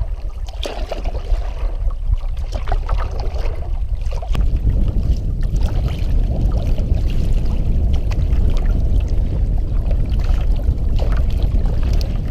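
Water washing and splashing around a paddled canoe on choppy open water, under a steady low wind rumble on the microphone that gets heavier about four seconds in.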